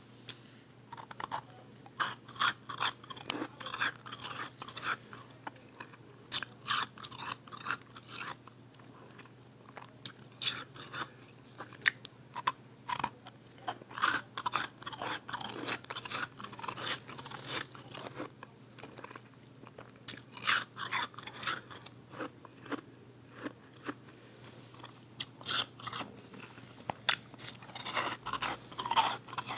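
Close-up chewing of soft blended ice pressed into small chunks: crisp crunching that comes in bursts, with short pauses between them.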